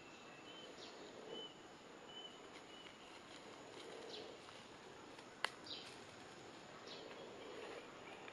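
Faint forest ambience with short, high bird chirps now and then. A single sharp click comes about five and a half seconds in.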